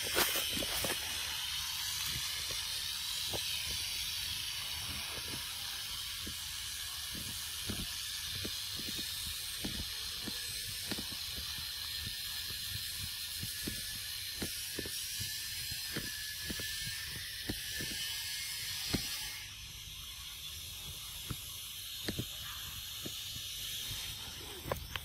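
Steady high-pitched hiss of tropical forest ambience, with scattered soft clicks throughout. The hiss drops a little about four-fifths of the way in.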